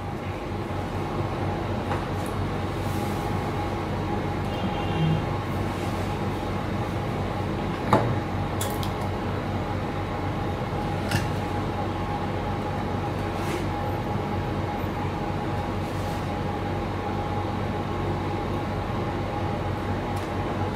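A steady machine-like hum with a constant low drone, broken by a few light clicks and taps from handling the plastic parts, the sharpest about 8 seconds in.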